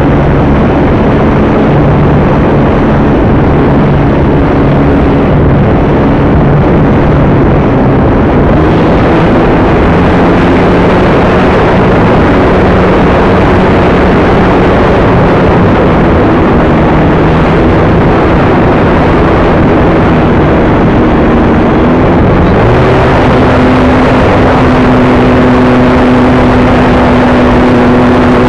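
Electric motor and propeller of a Multiplex AcroMaster RC aerobatic plane, heard from a camera mounted on the plane in flight, under heavy wind rush on the microphone. The motor's tone shifts with the throttle and steps up to a higher, steady pitch about 22 seconds in.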